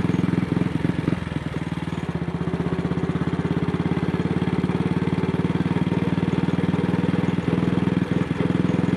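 Single-cylinder AJS Model 8 motorcycle engine running steadily under way, with uneven dips in its beat. The bike is misfiring and its throttle is sticking, and it is "not at all happy".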